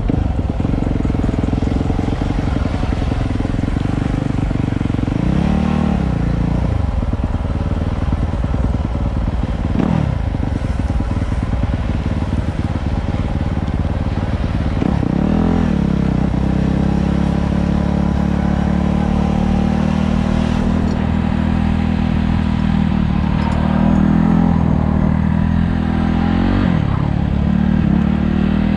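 Motorcycle engine running close by, revving up and easing off several times with rising and falling pitch, then holding a steadier, higher note through much of the second half.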